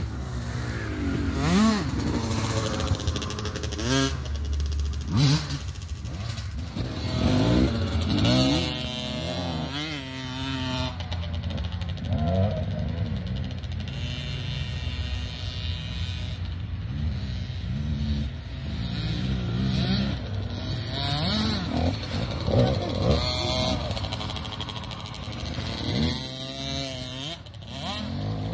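Dirt bike engines running on a trail, the revs rising and falling again and again with the throttle, more than one bike at once.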